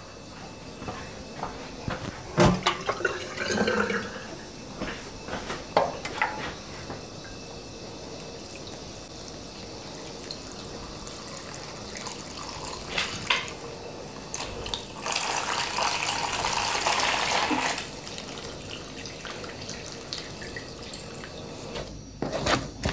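Kitchen tap running into a watering can for about three seconds in the second half, amid scattered knocks and rustles of plastic plant pots being handled at the sink.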